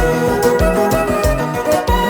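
Kompa-style music: held keyboard chords over a bass line and drums keeping a steady beat.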